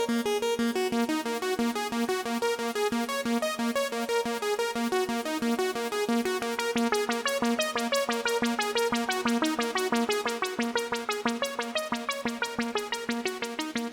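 Access Virus B synthesizer preset playing a fast, repeating pattern of short pitched notes, its note attacks growing sharper and brighter about halfway through.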